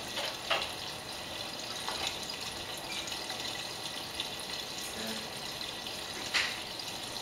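Miele Navitronic front-loading washing machine turning a wet load of clothes: water sloshing and splashing steadily in the drum, with a louder splash at about six seconds.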